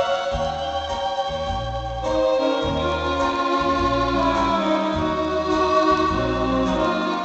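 Electronic organ voices played from a piano accordion: a melody over held chords, with short bass notes on a steady beat.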